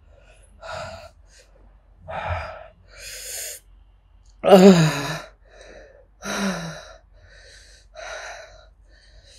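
A woman gasping and blowing out hard, heavy breaths, about seven or eight in all. The breaths about halfway through and a little later come out as falling moans, the first of them the loudest. It is the panting of a mouth and throat burning from having just eaten about 40 Carolina Reaper peppers.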